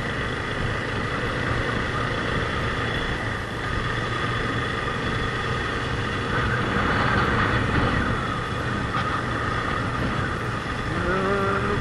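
Motorcycle engine running steadily as the bike is ridden along.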